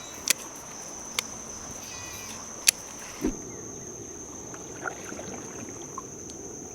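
Insects singing in one steady, high-pitched drone, with three sharp clicks or knocks in the first three seconds.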